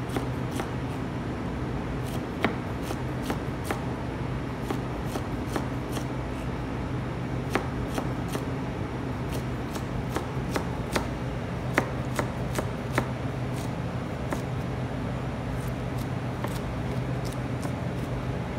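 Chef's knife dicing green beans on a plastic cutting board: quick, irregular knife taps against the board. A steady low hum runs underneath.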